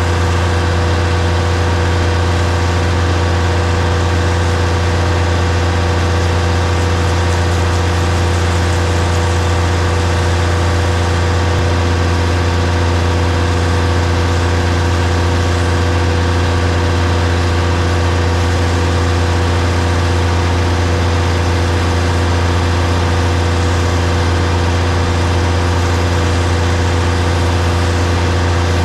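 DAF combi gully tanker's diesel engine running steadily at constant speed, a loud unchanging low hum with fixed tones above it.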